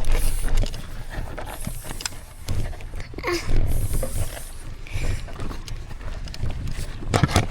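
Footsteps and a mountain bike being pushed up a rough trail, with irregular knocks and clatter, over a low wind rumble on the microphone.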